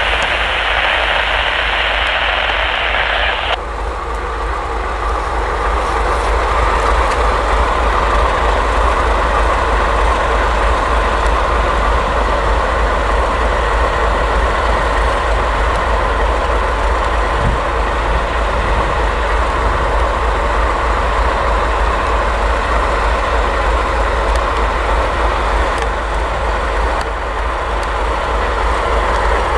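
Diesel locomotives, a GE B40-8W and a small maintenance switcher, running steadily with a constant low rumble as they push flatcars slowly along. A hiss over the top cuts off suddenly about three and a half seconds in.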